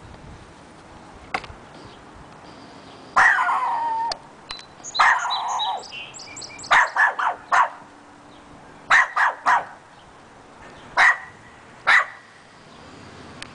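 Small dog barking in bouts: two longer, drawn-out barks, the first falling in pitch, then quick runs of three or four sharp barks and two single barks near the end. The barking of a dog left alone outside in its yard.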